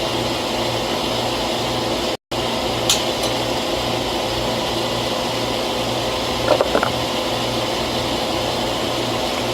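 Steady machine drone with a low, evenly pulsing hum. It drops out for an instant about two seconds in. A sharp click comes about three seconds in, and a few light metallic clinks follow a little before seven seconds.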